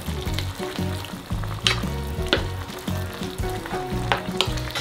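Chunky tomato and minced-meat sauce being stirred with a wooden spatula in a hot nonstick pan, sizzling wetly, with a few sharp knocks of the spatula against the pan.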